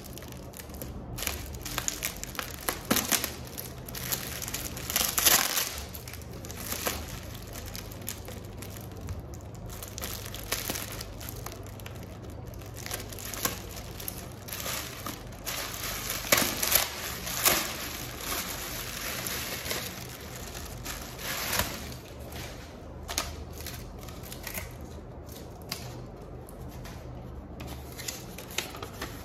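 Hands crinkling and rustling plastic packaging and bubble wrap, in irregular bursts with a few louder crackling handfuls. Near the end, a folded paper sheet rustles as it is opened.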